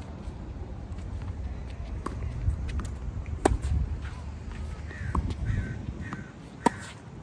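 Tennis ball struck back and forth in a rally: five sharp racket hits, about one every one and a half seconds, the loudest about halfway through and near the end, over a steady low rumble.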